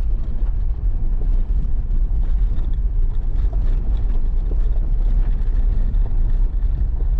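2016 Toyota 4Runner driving up an unpaved road: a steady low rumble of engine and tyres, with faint scattered ticks above it.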